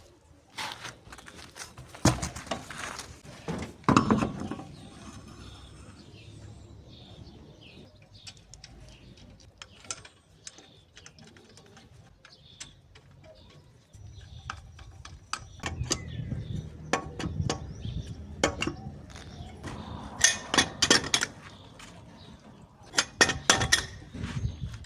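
Intermittent metallic clinks and clanks of hand tools against metal parts during work on a car's shock absorber, with clusters of sharper knocks near the start and again near the end.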